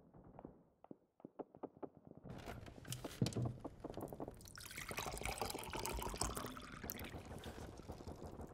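A few light clicks, then water pouring into a cup from about two seconds in, running steadily until the end.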